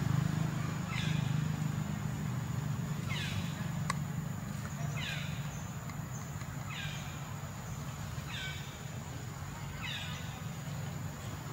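An animal's short call, falling in pitch, repeated about every two seconds over a steady low hum.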